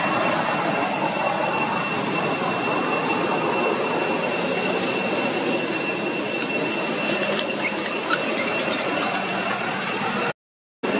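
A steady, loud outdoor drone of noise with a few high steady tones held over it. Faint short chirps come through about three-quarters of the way in, and the sound cuts out abruptly for a moment near the end.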